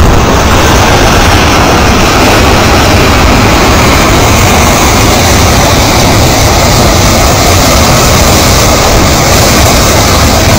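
Debris flow of mud, water and stones surging down a rocky channel: a loud, steady rumble with no let-up.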